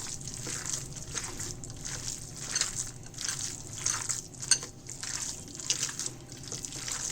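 Hands kneading and turning wet minced chicken marinade, in irregular squelching squishes a few times a second, with one sharp click about halfway through.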